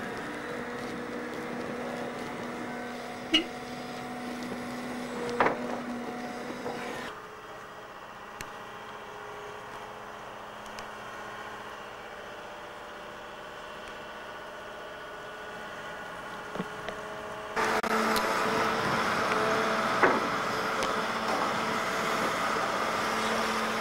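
Hydraulic excavator's engine running at a steady speed, a droning hum with a few sharp knocks in the first six seconds. The hum drops abruptly to a quieter level about seven seconds in and comes back louder about eighteen seconds in.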